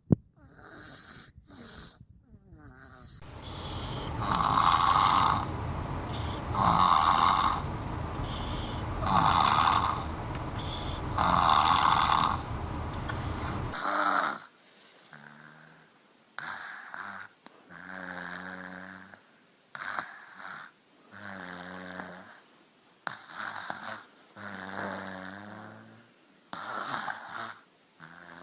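Snoring in slow, regular breaths about two seconds apart. About halfway through it changes to a different snore whose breaths carry a clear pitched tone and come a little faster.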